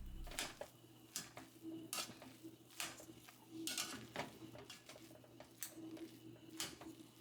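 A spoon knocking and scraping against a pot of creamy sauce, with short clinks roughly once a second.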